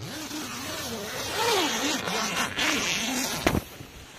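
Tent door zipper being pulled open: a rasp of about three and a half seconds whose pitch wavers with the pull, ending in a sharp click.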